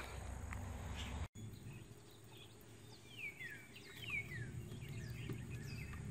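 Faint outdoor background with birds calling: several quick descending chirps in the middle, over a low steady rumble. The sound drops out briefly about a second in.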